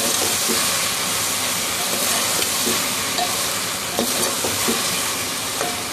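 Sliced okra, onion and tomato sizzling steadily in hot oil in a metal pot as a metal spoon stirs and scrapes through them, stir-frying with the lid off.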